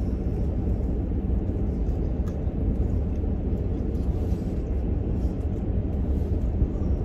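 Steady low rumble of a car's idling engine heard inside the cabin, with a few faint clicks of eating.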